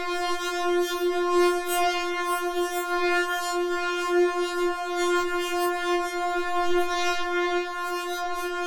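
Synthesizer line holding one steady, reedy buzzing note, its brightness wavering from moment to moment in a 'talking' effect.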